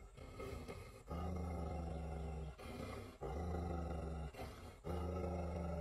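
Labrador retriever growling low at its own reflection in a mirror: three long, steady growls with short pauses between them, the first starting about a second in.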